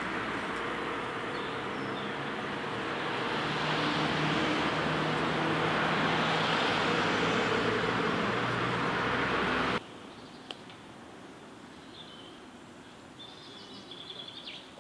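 Steady traffic noise with a low hum, which cuts off abruptly about ten seconds in. A quieter outdoor background follows, with a few faint high bird chirps near the end.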